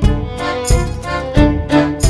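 Background music with a steady beat about every two-thirds of a second under sustained melodic lines.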